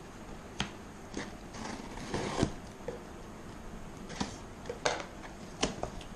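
Hands opening and handling a parcel: scattered sharp clicks and taps with a louder rustle of packaging about two seconds in.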